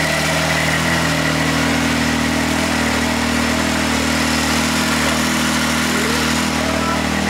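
Can-Am Maverick X3's turbocharged three-cylinder engine idling steadily with its charge tubes off. It is being run up to temperature to listen for a knock suspected after a coolant overheat.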